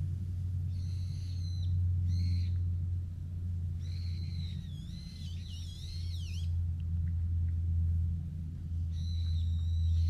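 Repeated high-pitched animal calls, each about a second long, the third drawn out and warbling quickly in pitch, over a steady low hum.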